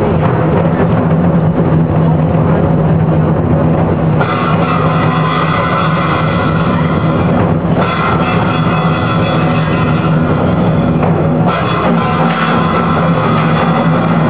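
Traditional Vietnamese water-puppet theatre music played loudly, with drums and cymbals. About four seconds in, held pitched notes join the percussion.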